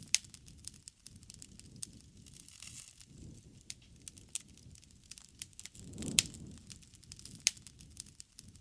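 Wood campfire crackling: irregular sharp pops and snaps over a low rumble of burning flames, which swells briefly about six seconds in.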